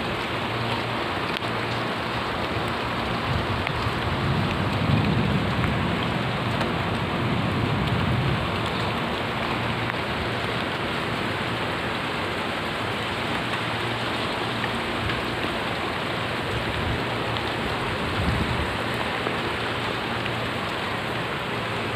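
Steady rain falling on a street and rooftops, an even dense hiss, with a few soft low rumbles in the first half and again near the end.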